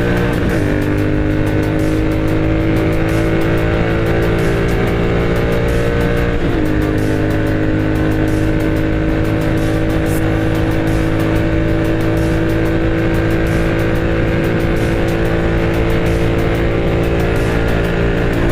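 Royal Enfield GT 650's parallel-twin engine through a Moto Torque aftermarket exhaust, running steadily at cruising speed, with a brief change in engine speed about six and a half seconds in. Background music plays along with it.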